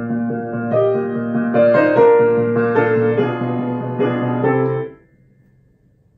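Grand piano played with both hands, a run of notes and chords that stops abruptly about five seconds in.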